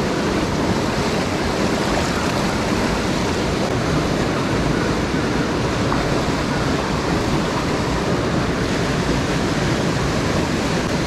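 Creek water rushing steadily over a small rocky cascade and through the pool below it, a loud, even noise with no breaks.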